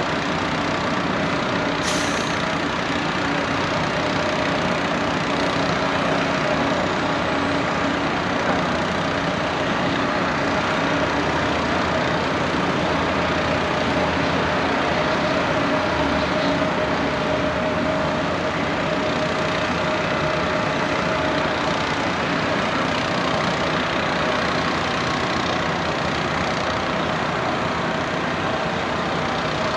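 Heavy diesel excavator fitted with an auger drill running steadily while boring a pile hole, with a constant engine tone. A brief sharp hiss about two seconds in.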